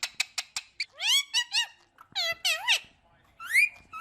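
Indian ringneck parakeet vocalising: a quick run of short, sharp clicks in the first second, then several high-pitched calls that rise and fall, each under a second long, with short gaps between them.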